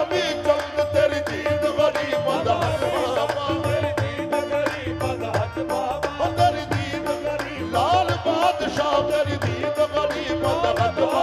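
Qawwali party performing live: harmonium melody over a steady drum beat, with sung vocal phrases coming in near the start, a couple of seconds in, and again around eight seconds in.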